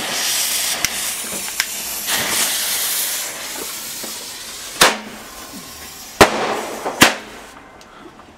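Consumer fireworks going off: a hissing rush for the first three seconds or so with a couple of small cracks, then three sharp bangs, the first about five seconds in and the others about a second apart.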